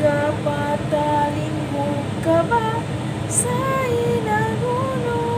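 A woman singing a slow melody, the notes held and gliding from one to the next, over a steady low hum.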